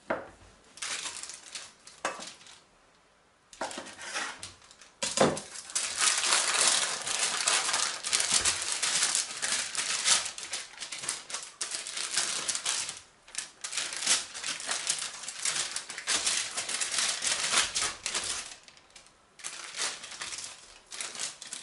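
Baking paper crinkling and rustling on a metal baking tray as strands of soft, nut-filled yeast dough are lifted and twisted together, with a knife cutting down through the dough onto the lined tray near the start.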